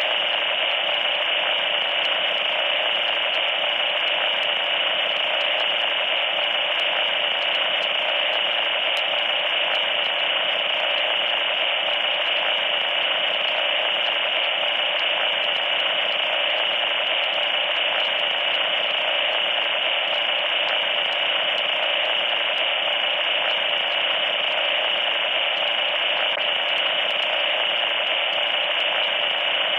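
Loud static hiss, steady and unbroken, with no change in level or character.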